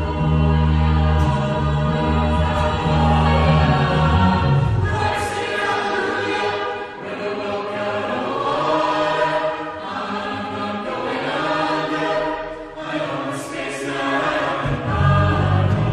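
Choir singing in several parts. Strong sustained low bass notes under the voices drop out about four seconds in and come back near the end.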